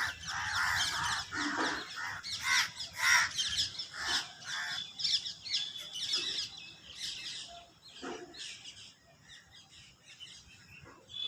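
A gathering of birds calling together: many quick, high chirps throughout, with harsh crow caws mixed in over the first few seconds. The calling thins out toward the end.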